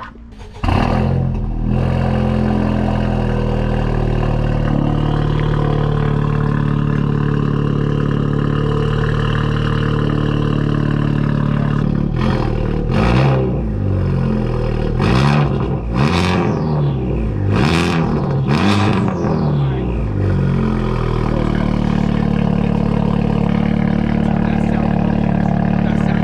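A Honda Civic Type R FK8's turbocharged 2.0-litre four-cylinder, running through a catless downpipe and straight-pipe exhaust, starts about half a second in and settles to a loud, steady idle. About halfway it is blipped about six times, each rev falling back. It then returns to idle.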